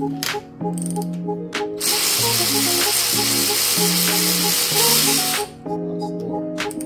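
Background music with a quick stepped melody. From about two seconds in, a loud hiss runs over it for some three and a half seconds, then stops abruptly.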